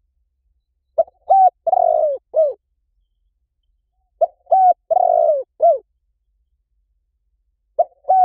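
Spotted dove cooing: three phrases of four or five low, arching coos each, about three and a half seconds apart, with silence between them. The third phrase is cut off at the end.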